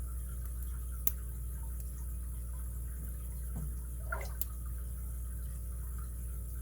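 Faint clicks and small scrapes of a lock pick working inside the keyway of a brass padlock, over a steady low background hum.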